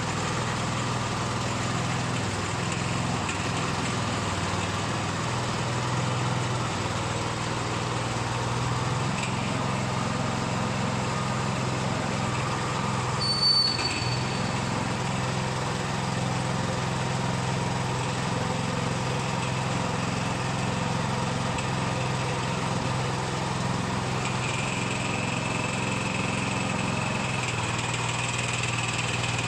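Engine of a compact construction machine running steadily at a constant speed, with a brief high-pitched squeak about halfway through.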